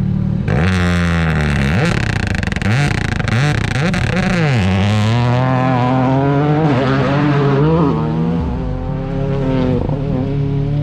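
A Toyota GR Yaris rally car's turbocharged engine revving hard: about half a second in the pitch climbs and drops several times as it goes through the gears, runs high through the middle, then settles back to a steady idle near the end.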